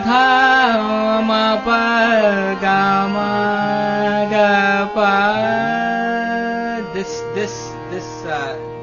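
A male voice singing a melismatic phrase in raag Nand, Hindustani classical style, gliding up and down over a steady drone. The voice stops about seven seconds in and the drone carries on.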